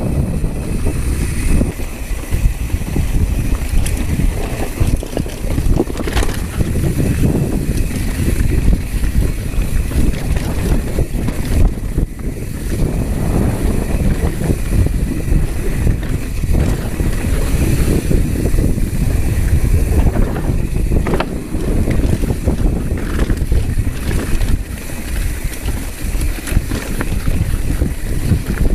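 Wind buffeting a GoPro's microphone as a mountain bike rides fast down a dirt trail, a steady rumble with tyre noise and scattered sharp clicks and rattles as the bike hits bumps.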